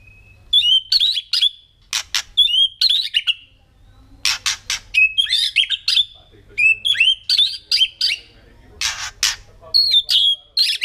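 White-rumped shama singing: phrases of clear whistled notes mixed with short harsh rasping notes, repeated over and over with brief pauses between phrases.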